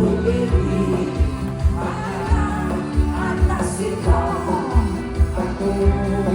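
Pop music with a singing voice and a steady beat.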